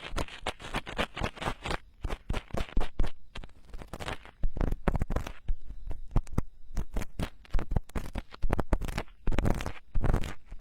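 Ear-cleaning tools scraping and picking inside a silicone binaural microphone ear, heard close up as rapid, irregular scratches and clicks.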